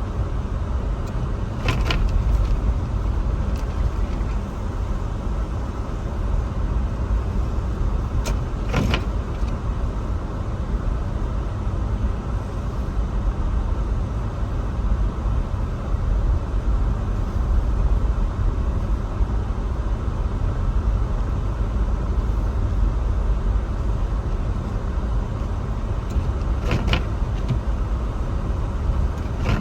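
Car driving on a snowy road: a steady low rumble of engine and tyres, with three brief knocks spread through it.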